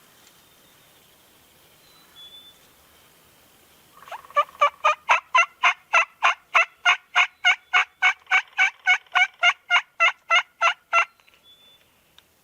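Turkey yelping: a long, even series of about two dozen sharp, loud yelps at roughly three a second, starting about four seconds in and stopping about seven seconds later.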